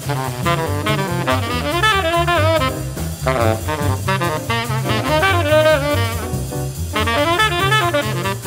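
Fast 1950s hard-bop jazz quartet recording: tenor saxophone playing quick, flowing lines over walking double bass, piano and drum kit with ride cymbal. The saxophone line pauses briefly twice.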